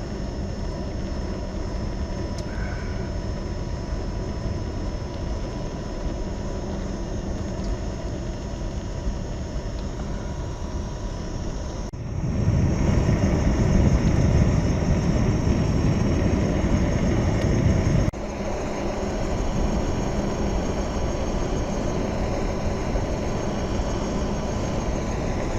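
Wind rushing over the microphone and tyre rumble from a Gotway MCM4 electric unicycle being ridden, with a faint steady whine. About halfway through the rush grows louder for some six seconds, then drops back.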